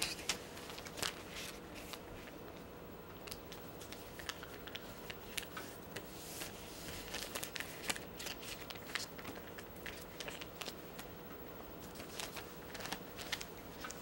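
A large sheet of origami paper being folded and creased by hand on a table: scattered soft rustles and crinkles with small paper clicks.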